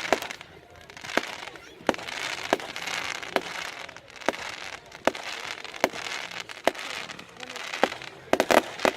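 Fireworks going off: a run of sharp bangs about once every second, with hissing and crackling between them, and a quick cluster of bangs near the end.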